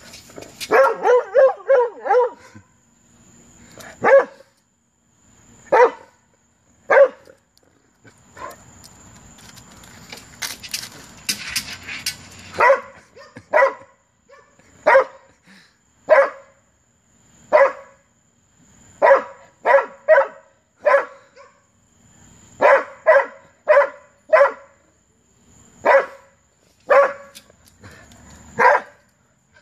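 A dog barking over and over at a bone lying out of reach, in short sharp barks. A fast run of about six barks comes about a second in, then single barks and quick clusters follow every second or so.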